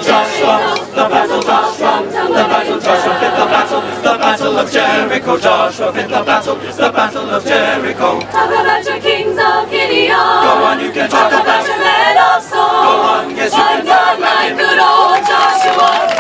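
Mixed-voice college chamber choir singing.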